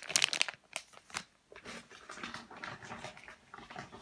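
Plastic squishy packaging crinkling in the hands, a run of sharp crackles, then a softer, steadier rustle with faint whine-like tones.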